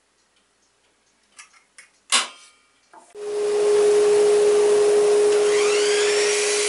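A few light clicks and one sharp click, then a Bosch miter saw is switched on about three seconds in and runs at speed with a loud, steady whine.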